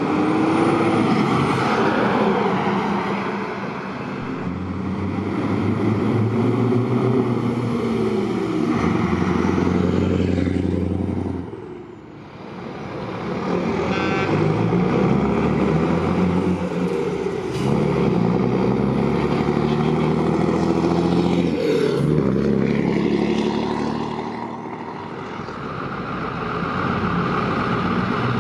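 Heavy diesel trucks passing one after another, their engines pulling with pitch rising and falling as they change gear. The sound swells as each truck goes by and dips briefly between them, about twelve seconds in and again near the end.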